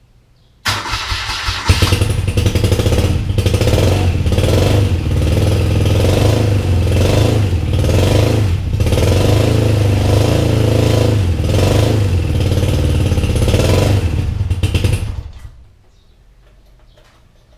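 Electric starter motor of a 1983 BMW R100RT turning over the 1000cc boxer twin on a new battery, a steady loud drone for about 14 seconds. It starts about a second in, steps up in level a moment later and stops shortly before the end. The battery and starter are working.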